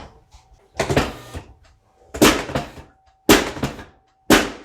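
Four heavy thumps about a second apart, each with a short ring-out, the loudest near the middle and the end.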